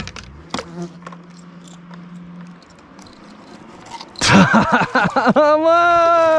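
A man's loud wordless yells: short rising and falling cries, then one long held shout near the end.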